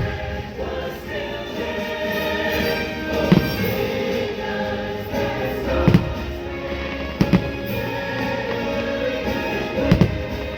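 Fireworks show soundtrack of choral music, with choir singing, broken by about five firework bursts booming a couple of seconds apart.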